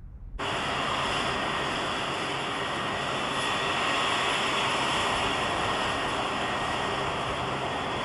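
Jet aircraft engines running: a steady loud rush with a thin high whine in it, starting abruptly about half a second in.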